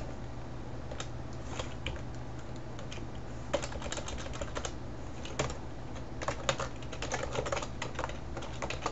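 Keys being typed on a computer keyboard: scattered key presses, sparse at first and coming in quicker runs from about a third of the way in, over a steady low hum.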